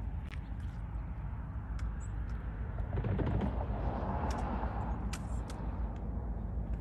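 Diesel-electric locomotive of a passing train running with a low, steady rumble, with a louder rush of noise building about three seconds in.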